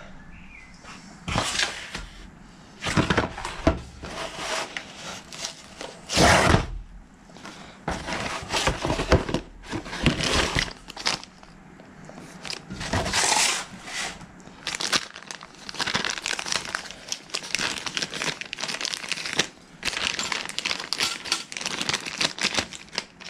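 Clear plastic packaging bags crinkling and rustling as they are handled and opened, in irregular bursts.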